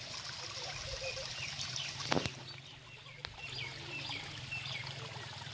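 Steady rushing of a flowing stream, with a small bird chirping short, repeated notes through the middle and a single knock about two seconds in.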